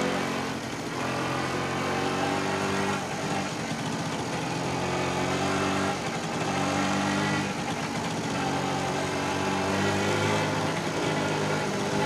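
Small moped engine running as the moped is ridden along, its pitch shifting slightly every few seconds as the rider eases the throttle on and off.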